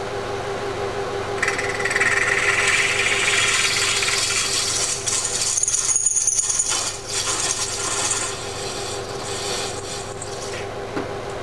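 Milling machine spindle running steadily while a twist drill bores into the cast-iron engine block, with a grinding, hissing cutting sound from about a second in until near the end. The drill is opening up a stripped main bearing cap bolt hole so a thread insert can go in.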